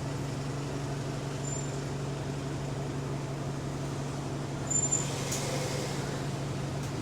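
Diesel bus engine running steadily with a constant low hum, on a bus that has an exhaust leak. A short, louder clatter comes about five seconds in.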